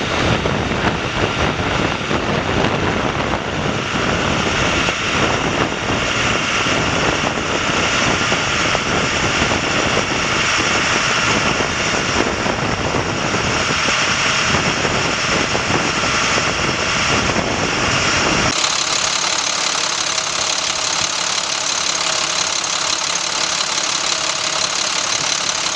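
International DT466 7.6L inline-six diesel engine running. About two-thirds of the way through, the sound cuts abruptly to a steadier idle heard close up in the open engine bay.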